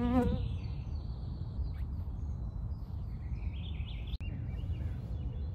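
Woodland ambience: a steady low rumble with faint bird chirps. An insect buzzes close to the microphone at the start and fades out within half a second. A sharp click comes about four seconds in.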